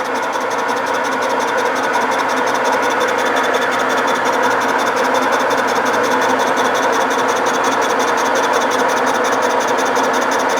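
Metal lathe running steadily while a boring bar takes a heavy cut inside a pulley's bore, throwing chips. The cut is running smoothly with little chatter.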